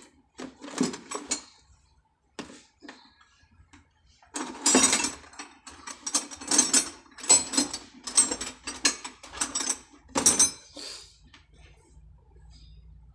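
Hand-tool work on a truck's fuel-line fittings: a string of irregular metal clicks and rattles, sparse at first, then dense and loud through the middle, ending a little after ten seconds in.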